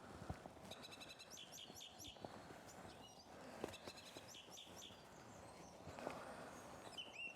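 Faint songbird song, among it a song thrush: short high phrases of chirps and whistles, each note repeated several times in quick succession, in two clusters about a second in and about four seconds in.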